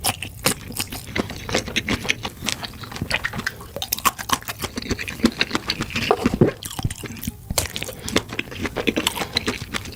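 Close-miked wet chewing of sausages: a dense, irregular run of small wet clicks and smacks from the mouth.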